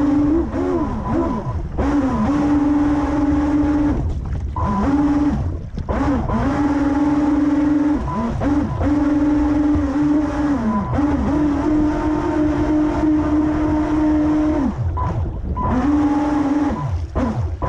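Pro Boat Riverine Patrol Boat RC model running flat out, heard from on board: its electric drive motor whines at a steady high pitch. The whine drops away and climbs back several times as the throttle is eased and reopened. Under it runs a constant rush of spray and wind.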